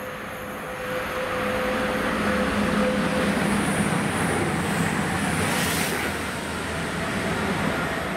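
Diesel passenger train passing close at speed: its engine and wheel-on-rail rumble swell about a second in, peak in the middle and ease off towards the end. A steady hum sounds over the first few seconds.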